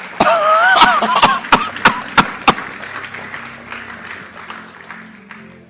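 Congregation reacting: a high wavering shout in the first second or so, a string of sharp claps, and a wash of applause and crowd noise that fades away over the next few seconds.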